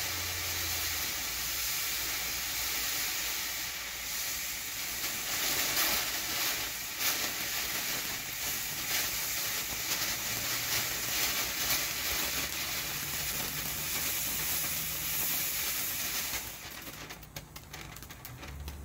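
Four TNT 7-inch consumer fountains burning at once, a loud steady spraying hiss with crackling pops mixed in. Near the end the hiss dies down as the fountains start to burn out, leaving scattered crackles.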